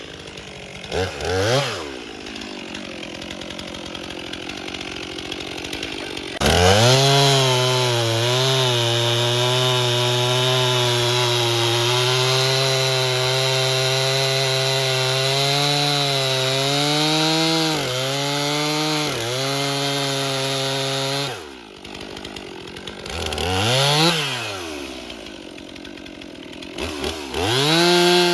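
Two-stroke gas chainsaw blipped twice, idling, then held at full throttle for about fifteen seconds with small dips in pitch, as when cutting through a log. It drops back to idle, revs once, and goes back to full throttle near the end.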